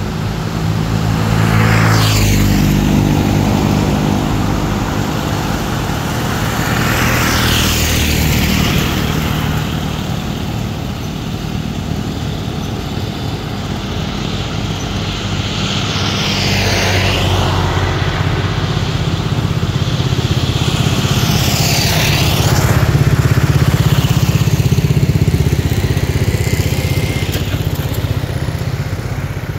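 Motor vehicles on a road: engines running throughout, with vehicles passing by four times, each pass swelling and fading.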